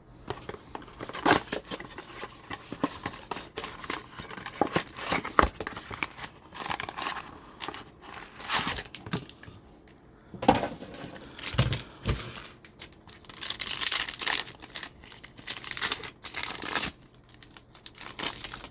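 Plastic and foil packaging being torn open and crumpled by hand, with many quick crinkles and sharp ticks: the wrapping and packs of a trading-card blaster box being opened.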